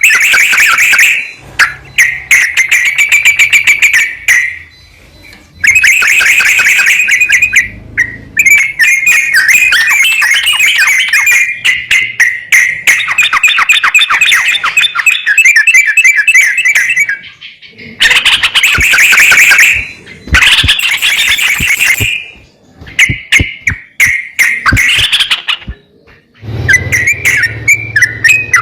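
Yellow-vented bulbul (trucukan) song: loud phrases of rapid, chattering notes, each a second or several long, broken by short pauses. It is a prompting recording played to get a caged bulbul that is reluctant to sing to start singing.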